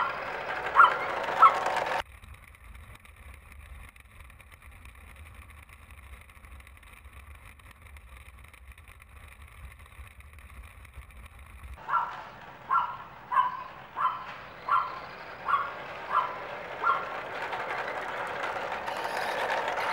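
Pembroke Welsh corgi barking in short, sharp barks about every two-thirds of a second over the running of a small RC truck on asphalt. For about the first half, after two barks, the sound cuts to a muffled low rumble picked up by the camera riding on the truck's roof.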